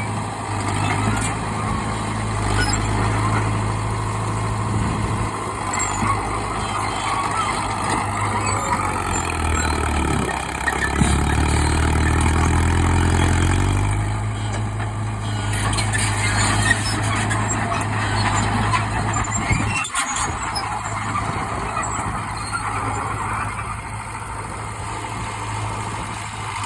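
Old bulldozer's engine running steadily while it works. About ten seconds in the engine note drops lower for roughly four seconds, then comes back up.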